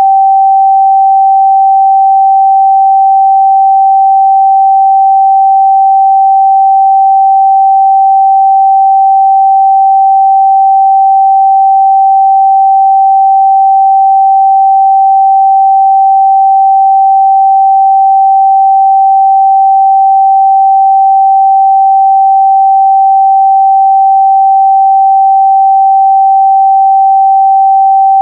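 A steady, loud 777 Hz pure sine test tone, one unchanging pitch with no harmonics or breaks.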